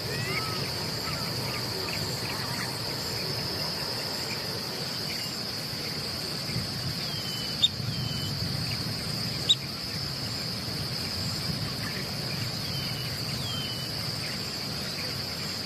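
A steady, high-pitched insect drone, like crickets or cicadas, runs without a break over low background rumble. A few faint short chirps and two sharp clicks come partway through.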